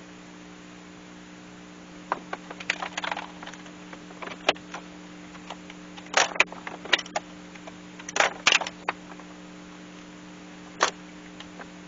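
Irregular clicks and knocks of small objects being handled and set down on a workbench, in a few clusters with a single knock near the end, over a steady electrical hum.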